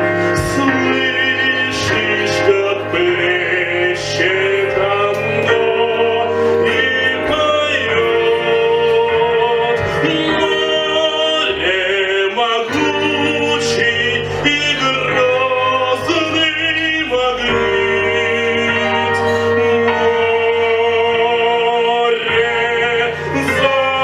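A male singer in academic (operatic) style singing a Russian romance, holding long notes with a wide vibrato over instrumental accompaniment.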